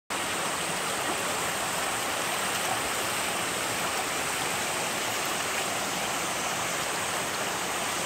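Shallow mountain stream rushing steadily over rock slabs.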